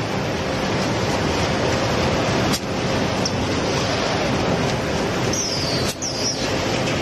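EX-2400 automatic carton folder-gluer running, a steady dense mechanical noise from its belts and rollers as corrugated cardboard blanks feed through. Two short high squeaks that slide down in pitch come about three-quarters of the way in.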